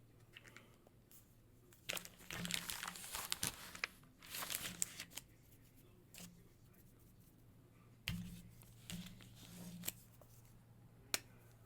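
Paper crinkling and rustling in several bursts, the sound of sheets being handled, followed near the end by one sharp click.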